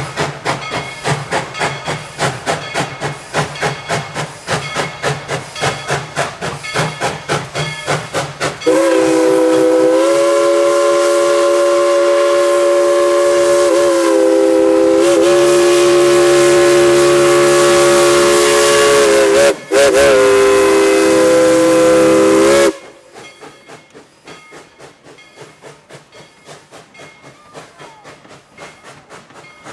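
Baldwin 2-8-2 steam locomotive No. 190 chuffing in a steady rhythm, about three exhaust beats a second. About nine seconds in, its chime whistle sounds a long blast of several notes at once, broken briefly near its end. Afterwards the chuffing continues more faintly.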